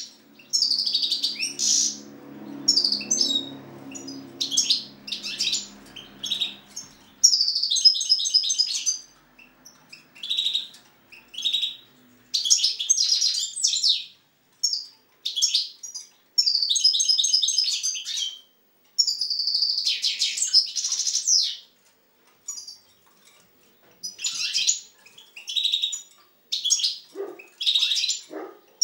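Caged European goldfinch singing: high twittering phrases with fast trills, broken by short pauses.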